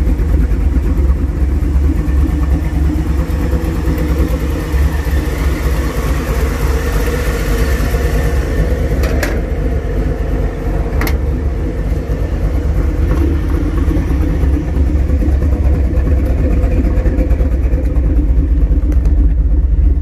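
A 383 cubic-inch small-block stroker V8 idling steadily through Flowmaster mufflers, with two short clicks about nine and eleven seconds in.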